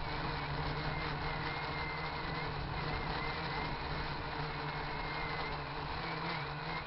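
RC quadcopter's electric motors and propellers whining steadily, the pitch wavering up and down as the throttle corrects against gusts, with a rumble of heavy wind on the microphone.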